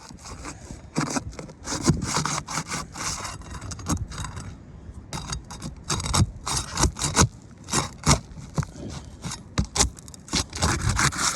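Roof shingles being pried and worked loose: irregular scraping and rubbing with many sharp clicks and knocks as the tool works under the shingles and at the nails.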